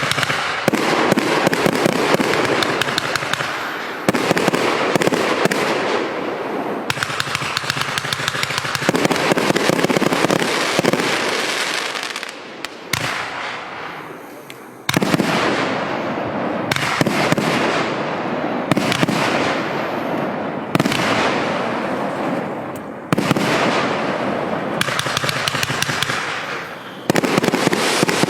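Large firework compound cake firing: a dense stream of rapid shots and crackling, in surges that start abruptly every two to four seconds and fade a little before the next.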